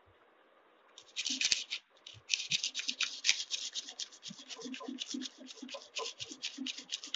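Sandpaper scraping along the blade of a small pair of scissors in quick back-and-forth strokes, several a second, starting about a second in: sharpening scissors that have gone blunt from long disuse.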